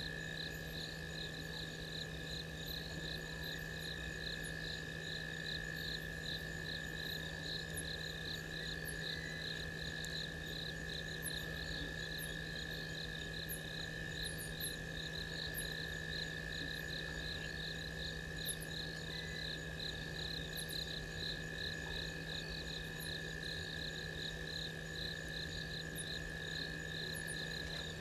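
Night chorus of crickets and other insects: a steady high trill with a chirp pulsing a few times a second above it. A low steady hum runs underneath.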